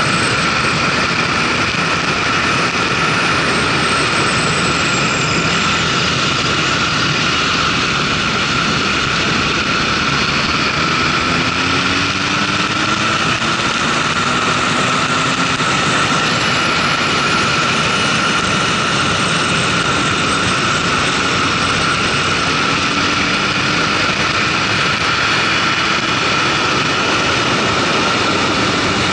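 Wind rush and engine noise of a motorcycle cruising at highway speed, about 100–115 km/h, steady and unbroken, with a constant high whine over the rushing noise and the engine pitch drifting slightly in places.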